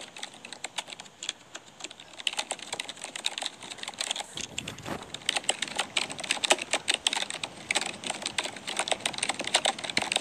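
Typing on a computer keyboard: fast, irregular clicking of keys, easing off briefly about a second in.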